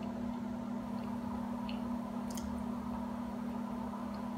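Steady low electrical hum of the room, with a few faint ticks.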